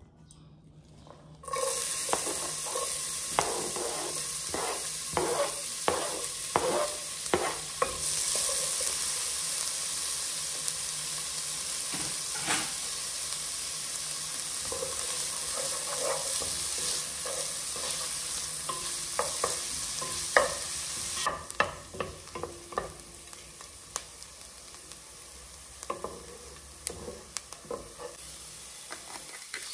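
Chopped onion sizzling as it fries in hot oil in a pot, with a wooden spoon stirring and knocking against the pot. The sizzle starts about a second and a half in as the onion hits the oil, and eases off after about twenty seconds while the stirring strokes go on.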